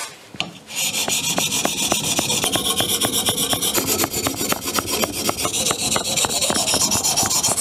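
Hand-held whetstone rubbed in quick, even back-and-forth strokes over the back of a steel sickle blade, a rasping scrape, grinding off the burr raised by sharpening the other side. The strokes start just under a second in.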